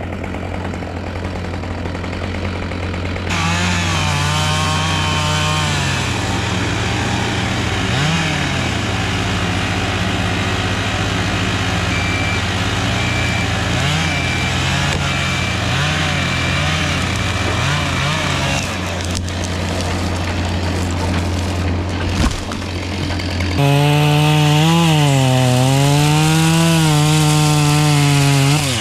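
Chainsaw running and cutting wood, its pitch dropping and rising as the engine bogs under load and revs again, louder for the last few seconds. A steady low engine hum runs underneath.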